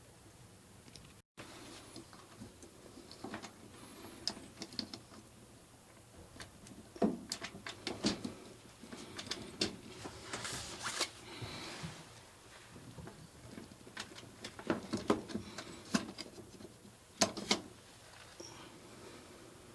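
Irregular small clicks, taps and light knocks of hands and tools working on dryer parts, coming in scattered clusters with short gaps between them.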